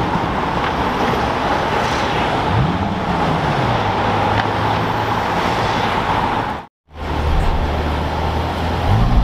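City street traffic noise, with a Dodge Viper GTS's V10 engine revving up and easing off about three seconds in as the car pulls away. After a sudden cut near seven seconds, a car engine runs low and steady.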